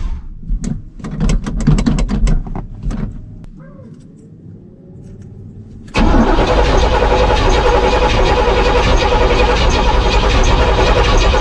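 Old truck engine being cranked over by its starter without catching: a couple of seconds of irregular pops and knocks as it tries to fire, a quieter spell, then steady cranking from about six seconds in.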